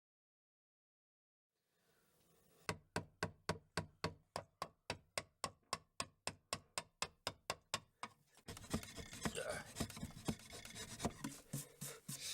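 Silence for about a second and a half, then steady back-and-forth hand-filing strokes, about five a second, changing about eight seconds in to quicker, uneven scrubbing.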